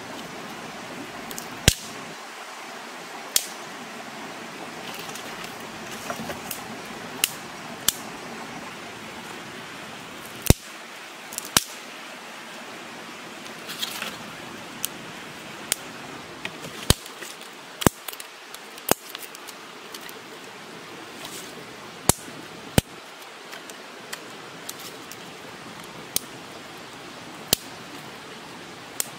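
Sharp snaps and knocks at irregular intervals, about one every second or two, from hands working with sticks and stones on the forest floor, over a steady background hiss.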